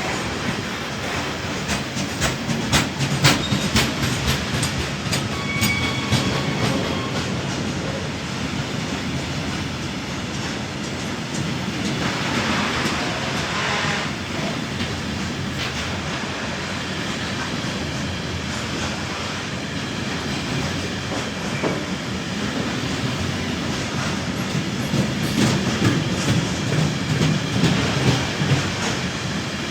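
Freight train rolling past, its wagon wheels clacking over rail joints in runs of rapid clicks. Faint wheel squeal comes briefly a few seconds in.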